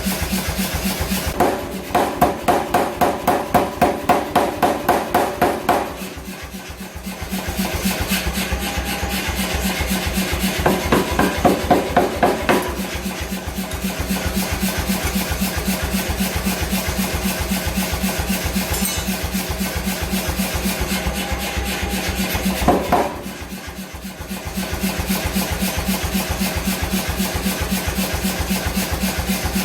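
Fast hammer blows on metal, about four a second with a ringing tone, in a long bout and a shorter one, then a single sharp strike later on, all over a steady running machine.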